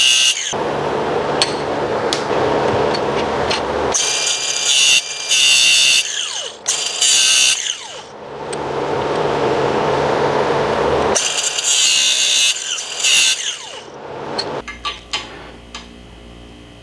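A power tool cutting grooves lengthwise into a steel bolt's threads, in several passes. Stretches of high, ringing metal-cutting sound alternate with a lower rushing noise, with a brief falling whine here and there. The sound goes quieter for the last couple of seconds.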